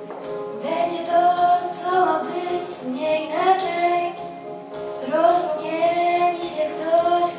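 A girl singing a pop song into a microphone, her voice amplified through a PA speaker over a backing track of held chords; her voice comes in about half a second in.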